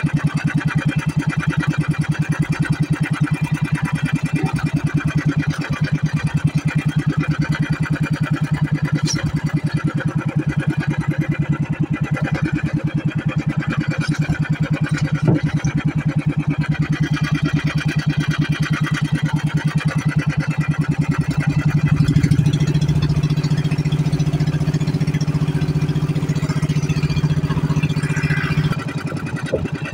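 Outrigger fishing boat's engine running steadily under way, with a fast even pulse. Its note gets a little louder about two-thirds of the way through and eases back just before the end.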